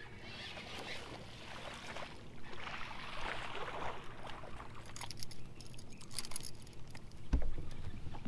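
A hooked largemouth bass splashing at the surface while it is reeled in, then a run of light clicks and a single loud thump near the end as the fish is brought aboard the boat.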